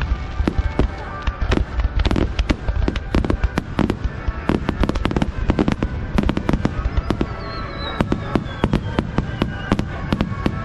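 Fireworks display: a rapid barrage of aerial shell bursts, several sharp bangs a second without a break.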